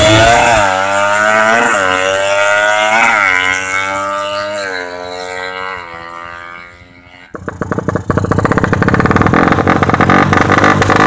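Drag-tuned motorcycle with a ported engine and open exhaust accelerating away through several gear changes, the pitch climbing and dropping back at each shift as it fades into the distance. About seven seconds in it cuts sharply to a motorcycle engine revving loudly close up.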